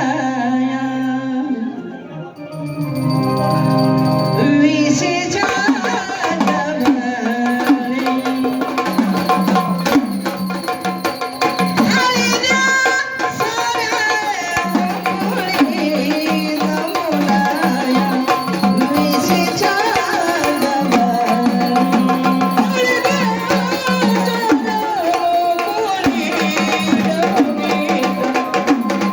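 Marathi gondhal music: an electronic keyboard holds sustained chords, then about four seconds in sambal drums join with a fast, dense beat under a keyboard melody.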